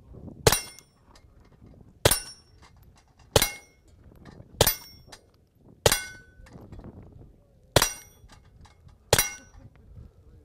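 Walther P22 .22 pistol fitted with a suppressor, fired seven times at a slow, steady pace. Each shot is a sharp, subdued crack with a short metallic ring, typical of steel plate targets being hit.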